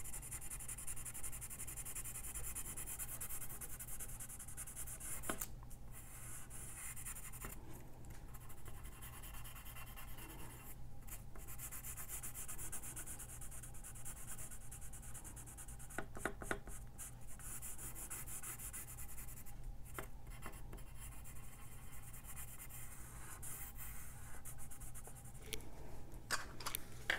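Coloured pencil scratching back and forth on paper as an area is shaded in, with short pauses between runs of strokes. A few light clicks come near the end.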